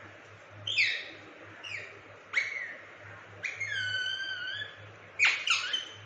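Indian ringneck parrot calling: a string of short, sharp, high calls, with one longer held call of about a second in the middle.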